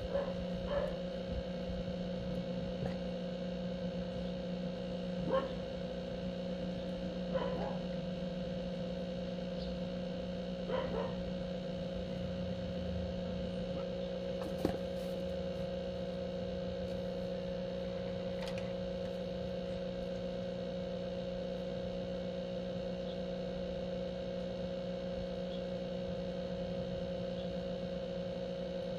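A steady electrical hum, with a few short faint knocks or yelps scattered through the first twenty seconds.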